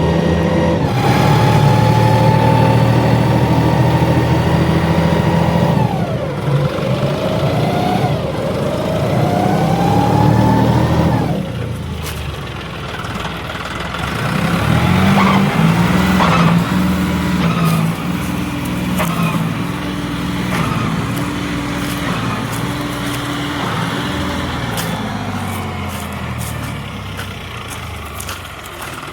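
Tractor's diesel engine running under steady throttle, then dropping and climbing in pitch twice as it is throttled back and revved up again, before settling into a lower, pulsing run with light rattles and clicks.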